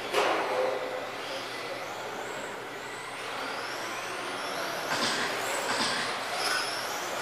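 Electric 1/10-scale RC GT cars with 21.5-turn brushless motors racing on a carpet track: high motor whines rising and falling as the cars accelerate and brake, over a steady hiss. Several sharp knocks, the loudest just after the start and a few more in the second half.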